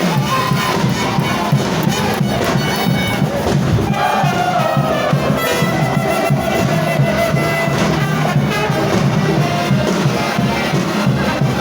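Frevo brass band playing: horns carrying the melody over a steady percussion beat.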